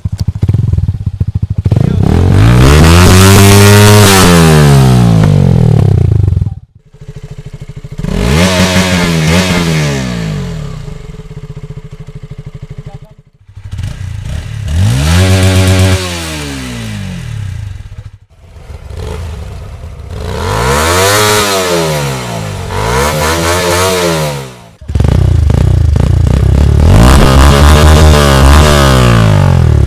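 Small-displacement motorcycle engines being revved in a series of short edited clips that break off abruptly, with one or two revs in each, the pitch climbing and falling back.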